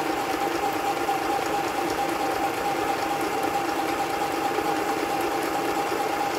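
Olizee mini portable electric sewing machine running steadily, its small motor and needle stitching through fabric.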